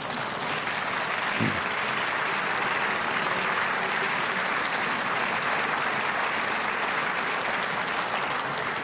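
Audience applauding in a hall: steady, sustained clapping from a seated crowd, beginning to fade near the end.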